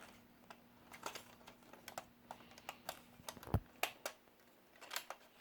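Faint, irregular small clicks and taps of plastic and metal parts of a 1/18 diecast model Jeep being worked at by hand, as a stubborn piece is pried at. A faint steady hum runs underneath.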